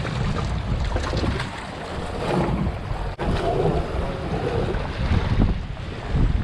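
Strong wind buffeting the microphone over choppy sea, with waves sloshing against the boat's hull; the gusts come and go unevenly, with a brief dropout about three seconds in.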